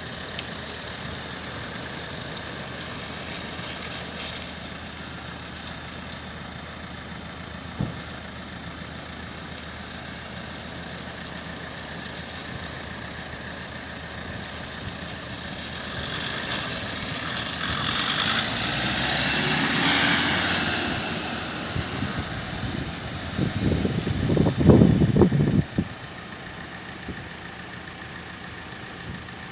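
Land Rover Defender 90's engine idling steadily. A louder rush swells and fades around the middle, and a few seconds of heavier, uneven rumble follow near the end.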